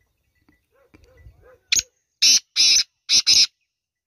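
Male black francolin giving its loud, harsh, grating call: a short note, then four longer rasping notes, all within about two seconds. A few faint low notes come before it.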